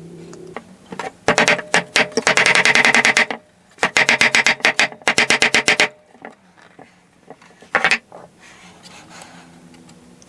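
Rapid runs of hammer taps seating fret wire into the fretboard slots, with two long runs and a short burst near the end.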